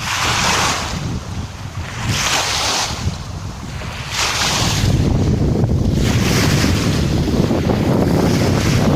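Sea waves washing in about every two seconds, with wind buffeting the microphone; the low wind rumble grows heavier about halfway through.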